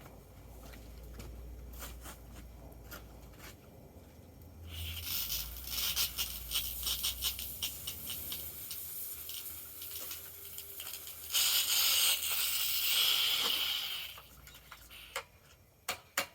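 Pressure washer spraying hot water onto metal drill press parts. The hiss of the spray starts about five seconds in and is loudest for a few seconds near the end, after a low hum at the start.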